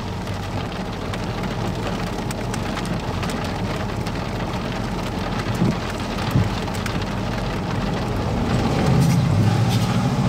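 Steady heavy rain during a tornado-producing thunderstorm. A vehicle engine comes up under it in the last couple of seconds.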